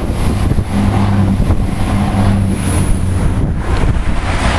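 An Irish Rail InterCity diesel multiple unit passing close beneath and moving away. Its engines give a steady low drone over the train's running noise.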